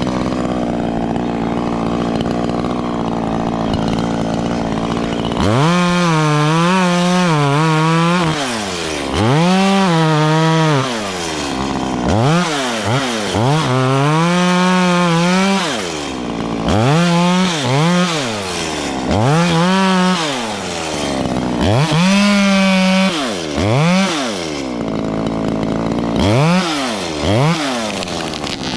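Two-stroke chainsaw engine running, steady for the first few seconds, then revved up and let fall back over and over, its pitch swinging up and down about ten times.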